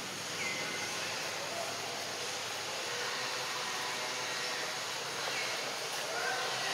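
Steady outdoor background hiss, with a few faint, short, high chirps over it.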